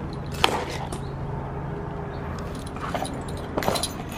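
Leather tool pouches being handled, their metal D-rings, rivets and tools clinking sharply a few times over a steady low hum.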